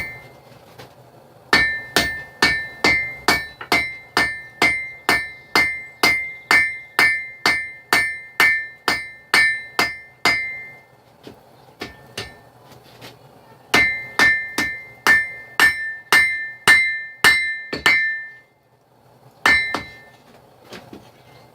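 Hand hammer striking red-hot steel knife stock on an anvil, each blow ringing: a long run of about three blows a second, a pause, a second run, then two more blows near the end.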